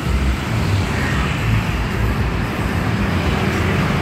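Steady street traffic noise with a heavy low rumble.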